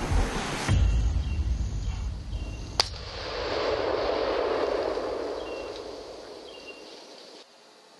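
A single rifle shot about three seconds in, its report rolling on and dying away over the next few seconds. Before it, a low rumbling noise that drops off about a second in.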